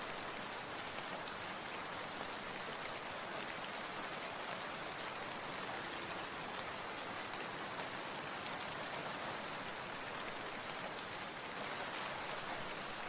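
Steady rain falling, an even hiss with scattered individual drops.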